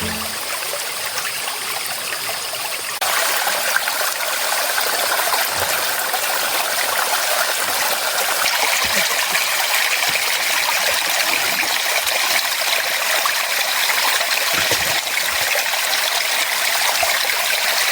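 A forest stream running over rocks, a steady rush of water that gets louder about three seconds in.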